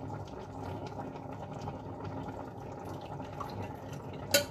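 Milk being poured slowly from a glass jug into a small glass holding an egg yolk, over the low bubbling of a pot of rice pudding simmering. A short knock sounds near the end.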